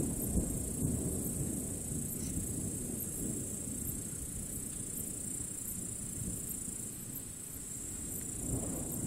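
Rumbling thunder dying away in the first seconds, then a new low rumble building near the end. Crickets chirp steadily throughout.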